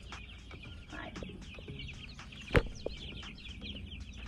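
A brooder full of young chickens peeping constantly, many high short cheeps overlapping. A single sharp knock cuts through about two and a half seconds in.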